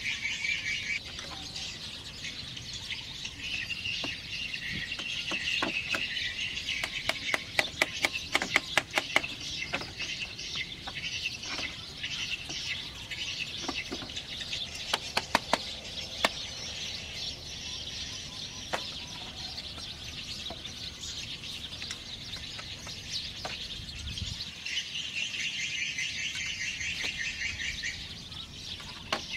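Wooden club knocking on bamboo floor slats: a quick run of sharp knocks about a quarter of the way in, more near the middle, and scattered single taps. Birds chirp steadily throughout.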